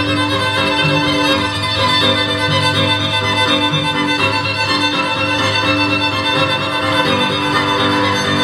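Live piano trio of violin, cello and grand piano, the violin leading over a steady low note.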